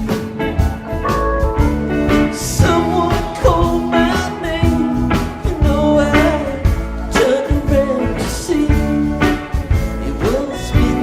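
Live rock band playing a slow song: drums, bass and a melody line with bending notes.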